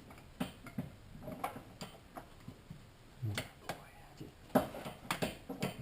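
Irregular clicks and light metal knocks of a socket wrench with extensions being worked by feel onto a spark plug deep in an engine bay.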